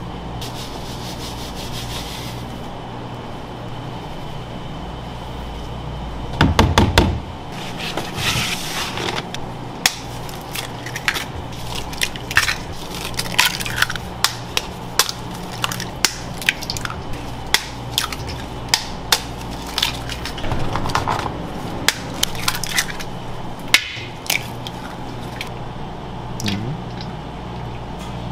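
Eggs being cracked one after another on the rim of a stainless steel bowl: a long run of short sharp cracks and taps over a steady low hum. Before that, flour hisses softly as it slides from a scoop into a plastic tub, and a loud thump comes about seven seconds in.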